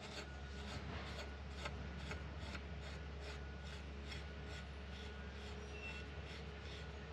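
Brush working pipe thread sealant into the threads of a brass pitless adapter, in quick rhythmic rubbing strokes about three a second. A low steady hum runs underneath.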